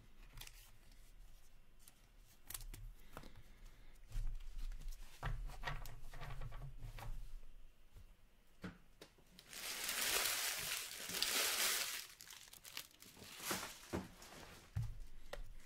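Trading-card packaging torn open in one long rip of a few seconds about two thirds of the way in, with a shorter rip just after. Before it come light clicks and knocks of cards and boxes being handled on a table.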